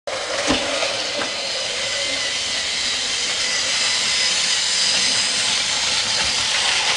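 Steady hissing, whirring noise with no clear rhythm.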